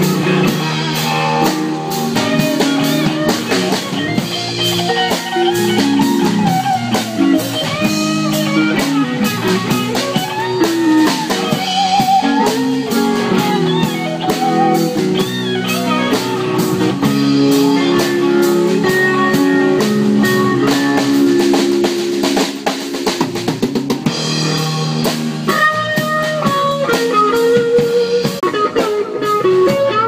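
A band playing music: guitar over a drum kit keeping a steady beat.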